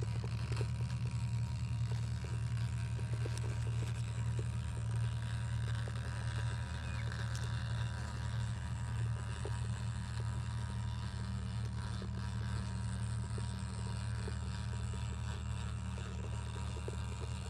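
Axial RBX10 Ryft RC rock bouncer's brushless motor and drivetrain running at crawling speed over rock: a steady low hum with faint small crackles.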